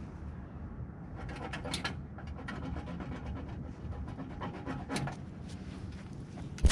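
Quick panting breaths close to the microphone, in clusters of short strokes, over a low steady rumble.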